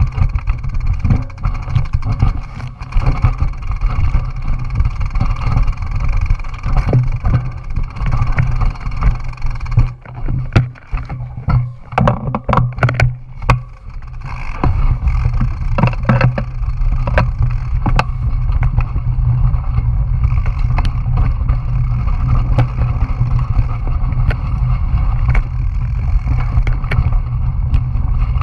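Wind buffeting a GoPro microphone over the rumble and rattle of a bicycle riding a rough dirt road. Sharp clacks from the bike jolting over rocks come thickest about halfway through.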